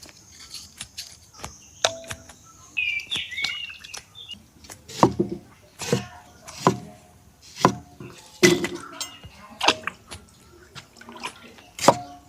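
A series of sharp clicks and knocks at irregular intervals, roughly one a second, some with a short ringing tone.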